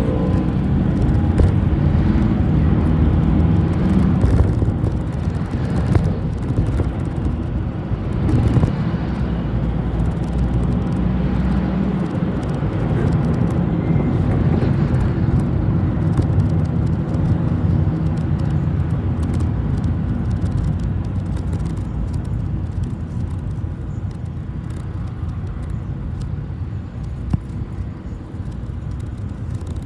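City bus running, heard from inside the cabin: a steady engine drone and road rumble with occasional rattles and clicks, growing quieter over the last third.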